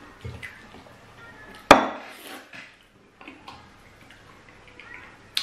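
Noisy eating of fufu and soup by hand: one loud sharp smack about a second and a half in, another near the end, and small wet clicks between. It is the deliberately loud lip-smacking that the woman calls disgusting.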